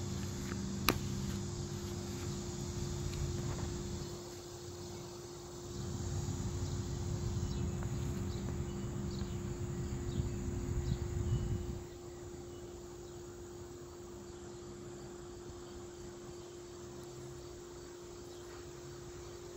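A steady chorus of insects. A low rumble lies under it for the first twelve seconds, easing briefly in the middle and then stopping, and there is one sharp click about a second in.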